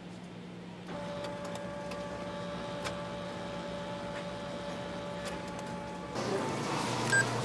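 Office photocopier starting up about a second in and running with a steady whir and hum. The sound changes and grows louder about six seconds in, and a short beep sounds near the end.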